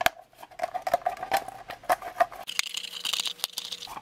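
Hand can opener cutting into the rim of a badly rusted old tin can: a string of irregular sharp metal clicks and crunches, with a scraping rasp near the end.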